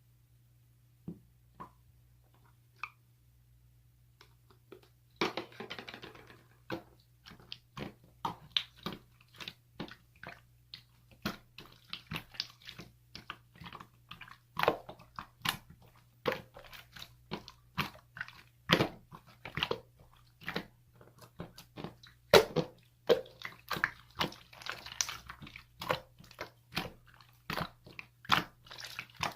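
Close-miked crisp crunching and clicking: irregular sharp cracks, several a second, beginning about five seconds in, over a steady low hum.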